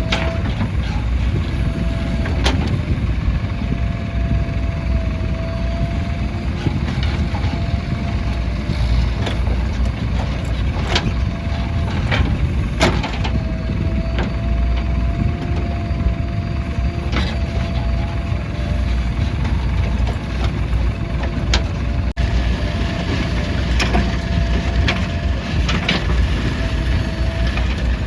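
Diesel engines of JCB 3DX backhoe loaders and farm tractors running steadily, with a wavering whine over the engine note and a few sharp knocks.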